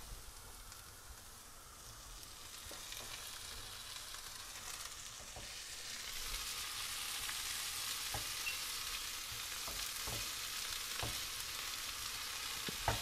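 Diced spiced potatoes and halved cherry tomatoes sizzling in a frying pan. The sizzle grows louder over the first several seconds, and a spatula stirring the pan gives a few short taps now and then.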